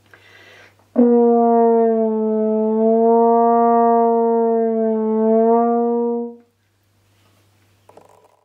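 French horn holding one sustained note for about five seconds, its pitch bent slightly flat and back by half-stopping the bell with the right hand to play microtones.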